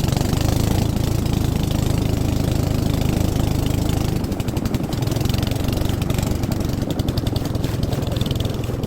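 A fishing boat's engine running steadily, with a fast, even pulse.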